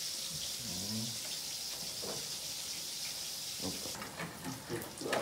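Steady high hiss that cuts off abruptly about four seconds in, followed by a few light clicks and knocks.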